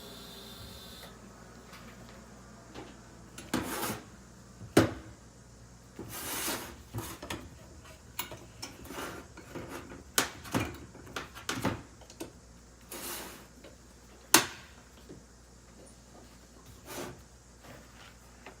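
Handling noises on a welding bench: a string of separate knocks, clacks and rubs from parts and tools being moved, two sharp knocks standing out. A steady hiss stops about a second in.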